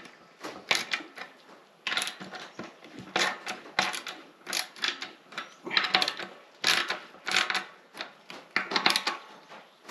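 Hand ratchet clicking in short, uneven strokes, about one to two a second, as the bolts clamping an external beadlock ring to an off-road wheel are tightened down by hand.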